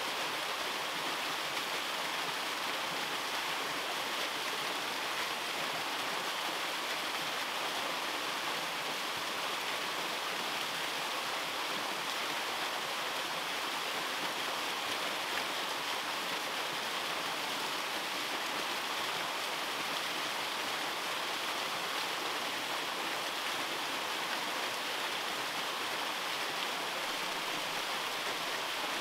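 Small waterfall pouring into a shallow rocky pool: a steady, even rush of falling water.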